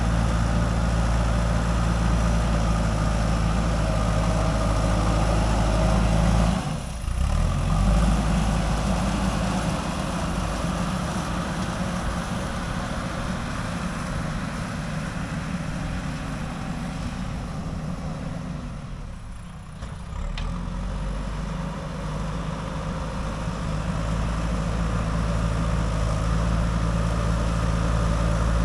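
JCB 3DX backhoe loader's diesel engine running steadily, with two brief dips in level, about seven seconds in and again about two-thirds of the way through.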